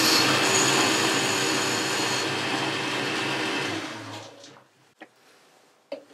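Boxford lathe running, turning a metal bar with chips coming off the cutting tool; it is switched off and winds down about four seconds in. A few light clicks follow near the end.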